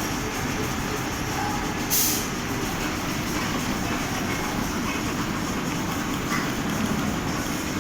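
Large automatic fabric spreader running steadily, its carriage travelling along the cutting table with dense mechanical noise, and a short hiss about two seconds in.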